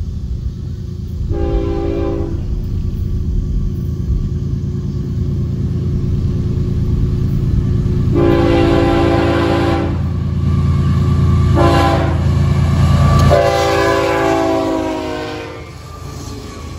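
Florida East Coast GE ES44C4 locomotives approaching and passing, the lead unit's air horn sounding four blasts, long, long, short, long: the grade-crossing signal. The blasts sound over the steady rumble of the engines. The last blast drops in pitch as the locomotive passes, and the engine rumble falls away near the end.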